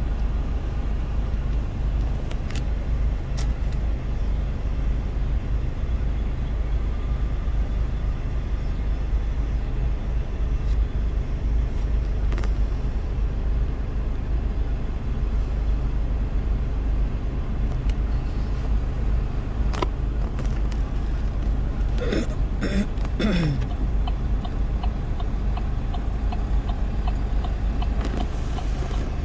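Freight train cars rolling past at low speed, a steady low rumble heard from inside a car's cabin, with a few short falling squeaks about three-quarters of the way through.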